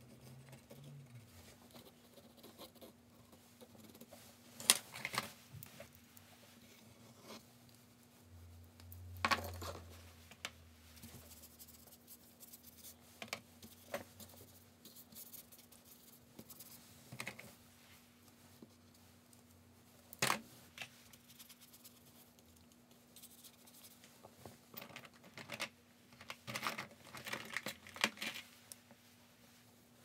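Pencil and brush scratching and brushing across watercolour paper, with scattered sharp knocks and clicks of tools on the table. A faint steady hum runs underneath.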